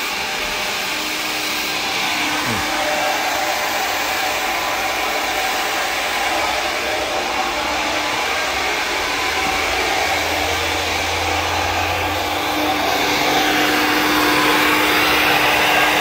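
Handheld hair dryer blowing steadily while a woman's short hair is blow-dried with a round brush, growing a little louder near the end.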